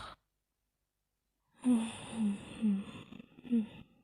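Sleeping breathing: a noisy in-breath ends right at the start, then after a pause a long out-breath carries a run of five short, low, falling grunts, about two a second.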